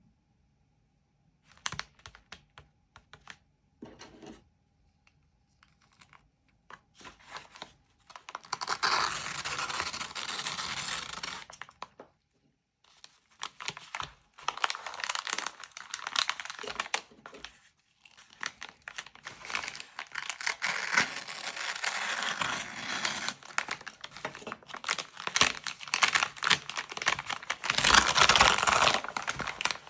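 Packaging being opened by hand: a few scattered taps and clicks at first, then long stretches of crinkling and tearing wrapping, with a short pause about halfway through.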